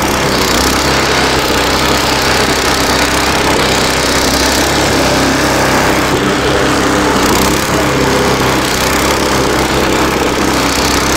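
Small engine of a homemade mini tractor running steadily while its rotary tiller works the soil.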